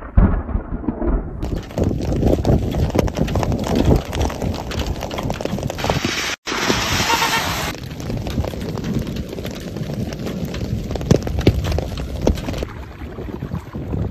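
Desert rainstorm: wind buffeting the microphone while rain and hail pelt down in a dense patter of hits. The sound breaks off abruptly about six seconds in and then resumes.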